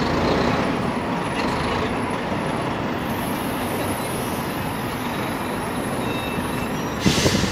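Steady street traffic noise as a NovaBus RTS transit bus pulls away and fades down the street. A brief, loud hissing burst comes near the end.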